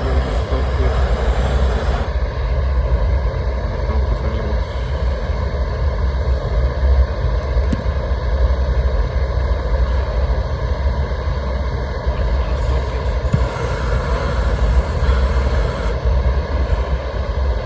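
Propane roofing torch burning steadily, a loud, even rushing sound, as it heats torch-down roofing patches.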